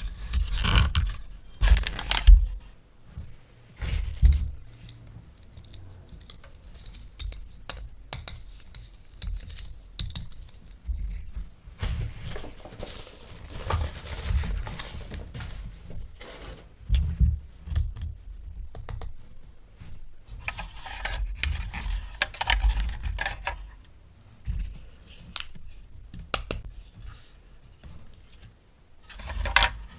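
Hands unboxing and handling plastic toy pieces and packaging: irregular clicks, rustles and light knocks, some in short clusters.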